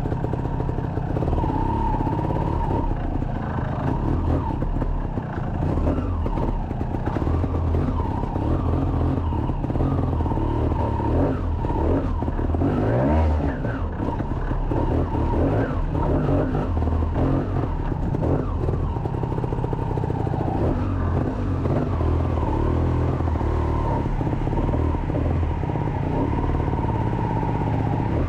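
Two-stroke single-cylinder engine of a TRS RR 300 sidecar trials outfit running at low speed under throttle as the outfit climbs a muddy woodland section. Its revs rise and fall with the throttle, with a brief rev-up about halfway through.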